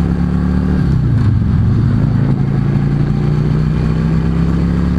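Yamaha V Star 650's air-cooled V-twin engine running under way, heard from the rider's seat. Its pitch drops about a second in, as at a gear change, then rises steadily as the bike accelerates.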